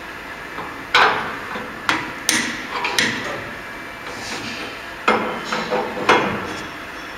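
Sharp clanks and knocks from the hand lever and locking handle on the head of a double-head cutting saw as it is worked by hand. They come in two bunches, one starting about a second in and another about five seconds in.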